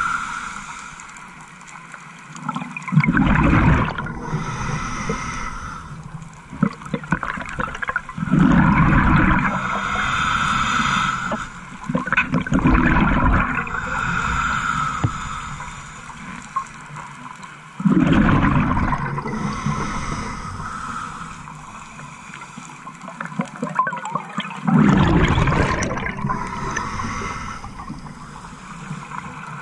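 A scuba diver breathing through a regulator underwater: five loud rushes of exhaled bubbles a few seconds apart, with the regulator's hiss between them.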